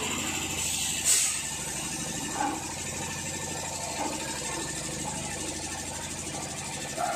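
Factory machinery in a plastic-bottle plant running with a steady hum, with a short, loud hiss about a second in.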